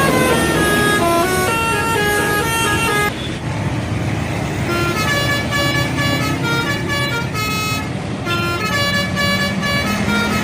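Bus telolet horn, a multi-tone musical air horn, playing quick melodies of stepped notes over the bus's engine running. The tune changes and drops slightly in loudness about three seconds in.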